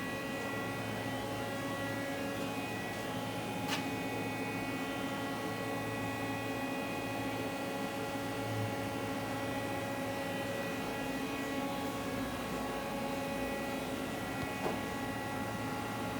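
Steady hum made of several fixed tones from machinery or electrical equipment in a machine shop, unchanging throughout, with two light clicks, about four seconds in and near the end.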